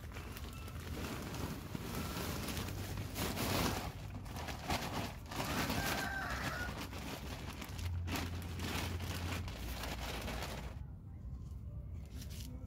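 Scraping and rustling of potting soil, rice husks and manure being turned and mixed by hand, with a few faint short calls in the background.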